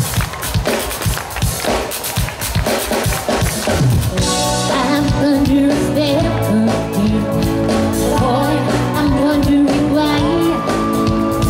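Live pop band playing on stage: for about four seconds the drums are to the fore, then the full band comes in with bass and held keyboard notes.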